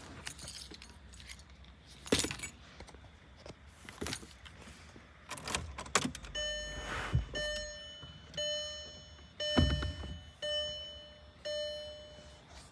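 Keys jingling and plastic clicks and knocks, then a car's electronic warning chime beeping about once a second, six times.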